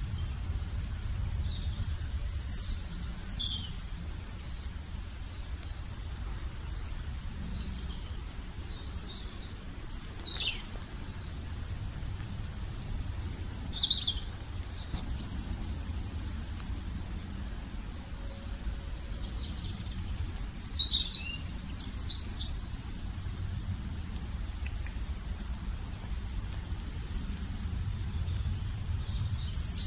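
Small songbirds chirping and singing in short, high phrases that come in clusters every few seconds, over a steady low rumble.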